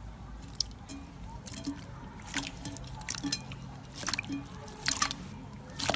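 Slime being squished and pressed, giving irregular wet sticky clicks and pops about one or two a second.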